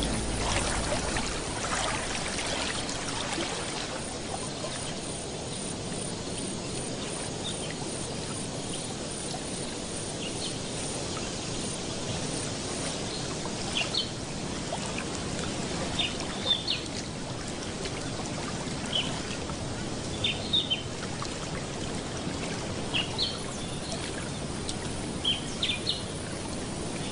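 Steady trickling, running water, with short high bird chirps from about halfway through, several coming in quick pairs or threes.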